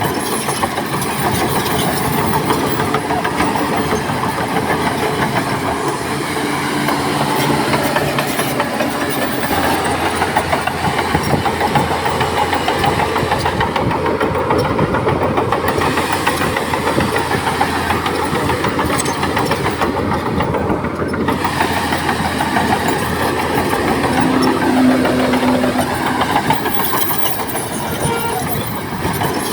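Heavy diesel earthmoving machinery running continuously, the engine pitch rising and falling as the machines work under load.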